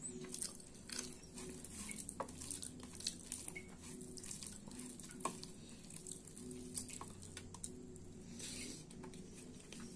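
Fingers mixing and scooping soft khichdi on a steel plate: faint, scattered small wet clicks and squishes, with eating sounds as a handful goes into the mouth near the end.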